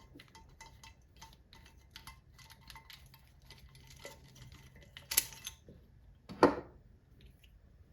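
Small metal parts clinking and tapping as valve-train pieces on a small-block Chevy cylinder head are handled, with two louder knocks about five and six and a half seconds in.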